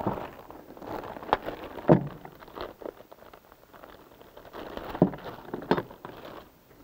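Clear plastic zip-top parts bag crinkling and rustling as it is handled and pulled open, with a few sharp clicks along the way.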